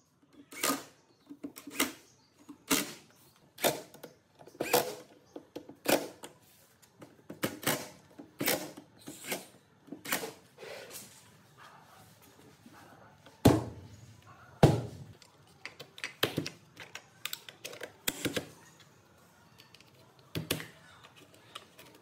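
Repeated sharp knocks and clicks, roughly one a second and unevenly spaced, with two heavier thumps about midway.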